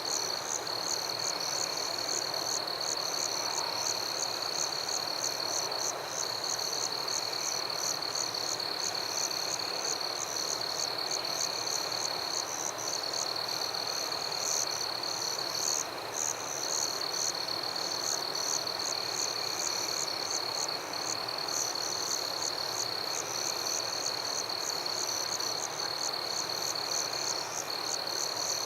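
Night chorus of frogs and insects: a continuous high-pitched trill with quick, repeated higher chirps several times a second over a steady hiss.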